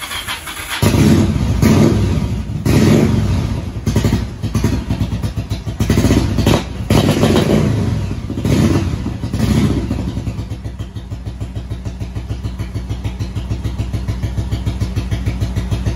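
Cruiser motorcycle engine starting on choke, catching about a second in. It is revved up and down several times, then settles into a steady idle for the last several seconds.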